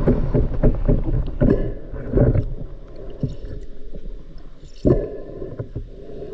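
Muffled water sloshing and gurgling with irregular knocks and bumps. It is louder in the first two and a half seconds, then quieter, with one sharp knock near the end.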